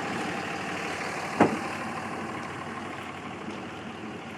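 A car door shuts with a single sharp slam about a second and a half in, over a steady background rush.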